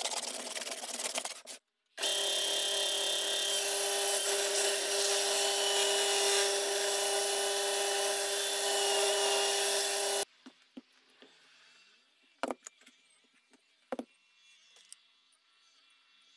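A steel hand plane shaving end-grain wood for about a second and a half. After a short break, a bench belt sander runs steadily with a board held against the belt for about eight seconds, then cuts off abruptly. This is followed by a quiet stretch with a few sharp clicks and taps.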